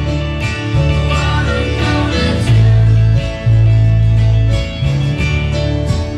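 Rock band playing: electric guitar, bass guitar, keyboard and drums, with long held bass notes that change every second or so under the chords and a steady drum beat.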